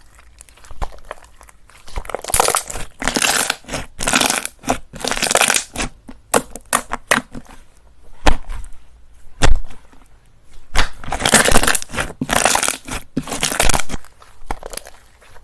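Slime being squeezed and pressed, giving bursts of crackling and crunching in two long stretches, with a few sharp pops between them.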